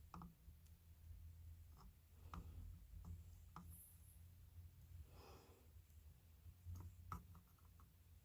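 Near silence with faint low hum: a few small scattered clicks and taps from handling tools and parts, and one soft breath out about five seconds in.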